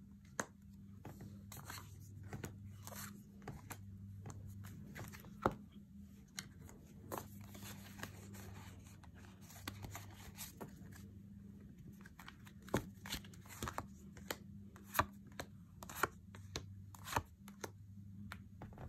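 Playing cards being shuffled and handled, with many irregular sharp clicks and snaps, over a low steady hum.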